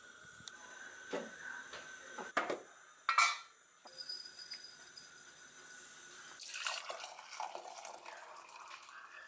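Tea being made: a steady hiss from the gas burner under a saucepan of water, a few sharp clinks and knocks of spoon and tin, then hot water poured from the saucepan into a mug's tea infuser, splashing from about six and a half seconds in.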